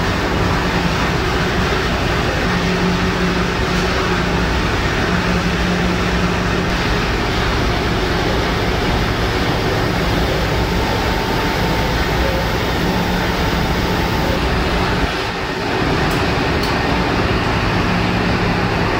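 Loud, continuous din of a container ship's engine room under way: diesel machinery, pumps and ventilation running together, with steady low hums under the noise.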